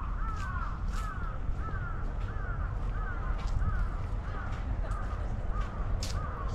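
Crows cawing over and over, the calls overlapping at about two a second, over a low steady rumble.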